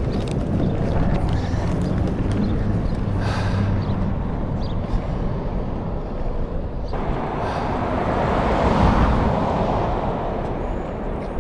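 Outdoor rolling rumble and rush of a passing vehicle. It begins about seven seconds in, swells to a peak a couple of seconds later, and fades.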